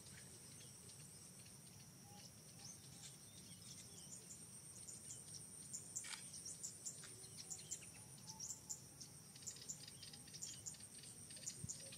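Faint, steady high insect trill with many short, high chirps scattered through it, and a single sharp click about halfway.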